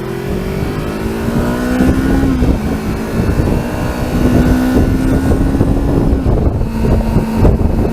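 Kawasaki Versys 300 parallel-twin motorcycle engine accelerating as the bike pulls out: its pitch rises over the first couple of seconds, breaks at a gear change, then holds steadier. Wind and road noise rush underneath.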